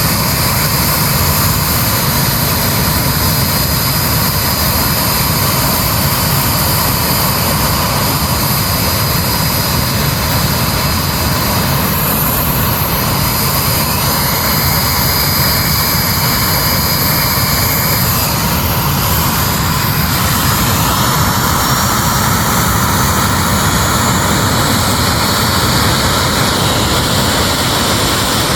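A large engine running steadily and loudly: a constant rush with several high whining tones above it, and the whine shifts slightly about halfway through.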